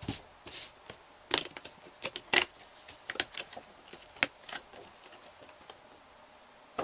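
A cardboard Funko Pop box and its clear plastic protector being handled and turned over: irregular taps, clicks and rustles, sharpest about a second and a half and two and a half seconds in.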